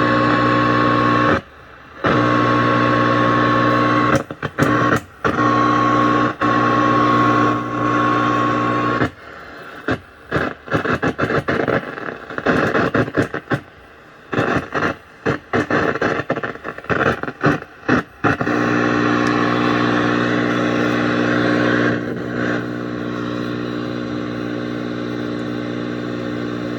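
Loud steady electrical buzz from a vintage colour television's speaker. It cuts out a few times, then stutters on and off rapidly for several seconds in the middle, as if through a bad connection, before settling back to a steady buzz.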